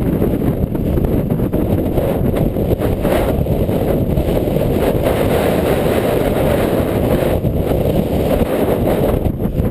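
Mountain bike rolling over a wooden slatted boardwalk, its tyres rattling steadily across the slats, mixed with heavy wind buffeting on the camera's microphone.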